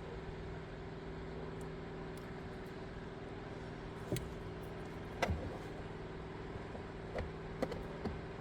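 Steady low hum of a Ford F-150 pickup running at idle, with a few light clicks and taps scattered over the middle and end.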